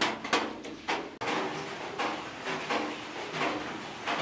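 Water sloshing in a steel bowl as a hand stirs sliced banana flower soaking in it, a few quick splashy strokes. About a second in these stop abruptly and give way to a softer, steady background hiss.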